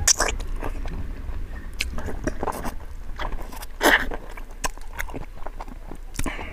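Close-miked mouth sounds of a man biting and chewing a handful of rice and soft-cooked pig's trotter: irregular clicks, with louder bursts just after the start and about four seconds in.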